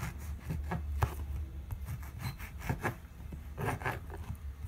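A knife sawing through crusty bolillo rolls on a plastic cutting board: a run of short, irregular scraping strokes as the blade cuts the crust, with a sharper knock of the blade on the board about a second in.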